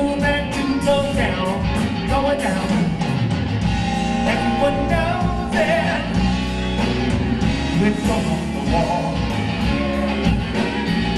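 Live blues-rock band playing loudly: electric guitar over bass and a full drum kit, with a voice singing over it.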